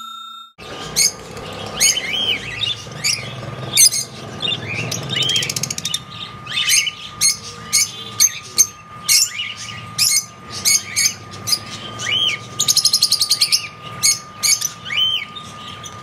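Lovebirds calling: sharp, shrill chirps one after another, broken twice by a rapid chattering trill.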